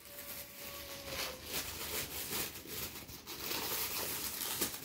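Silver foil gift wrap crinkling and tearing as a present is unwrapped, in irregular rustles and crackles.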